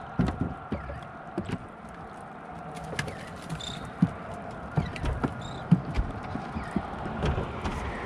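Irregular hollow thumps and knocks from a person moving and shifting his footing on a small boat's deck, about a dozen of them, loudest a little past the middle.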